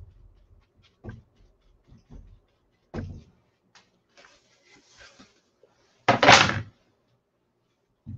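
Dry paper towel dabbing at the paint on a stretched canvas on a wooden easel: a few soft taps and knocks over the first three seconds, then a louder short burst of noise about six seconds in.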